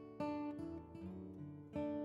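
Instrumental background music on guitar, with held plucked chords and a new chord struck about a fifth of a second in and again near the end.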